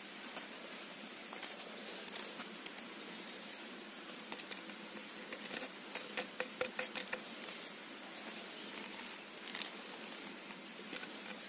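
Small plastic spice sachets crinkling and rustling as they are opened and shaken out over a bamboo tube, with a run of soft clicks in the middle, over a faint steady background hiss.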